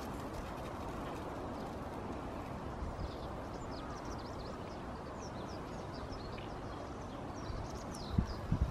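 Small birds chirping: many short, high, falling chirps from about three seconds in, over a steady background hiss. A couple of low thumps near the end.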